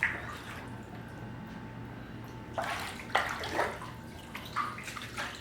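Floodwater sloshing and splashing indoors, in a few irregular splashes from about two and a half seconds in, over a steady low hum.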